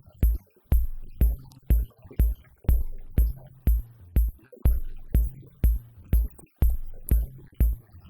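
Electronic background music with a steady drum-machine beat, about two beats a second.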